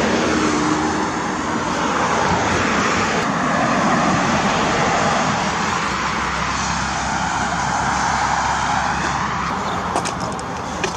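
Road traffic: vehicles passing on a busy street, a steady rush of tyre and engine noise.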